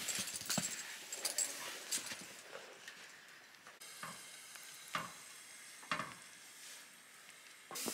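Faint cooking on portable gas stoves: a soft steady hiss of a pan of ravioli simmering and a pan of sauce being stirred, with a couple of short knocks of the spoon about five and six seconds in. Before that, a few faint rustles and clicks.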